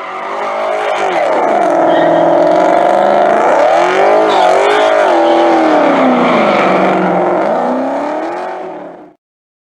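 Car engine revving, its note falling and rising several times; it fades in and cuts off abruptly about nine seconds in.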